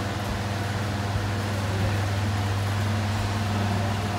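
Steady low hum and airy hiss of electric fans running, with no clear thuds or voices.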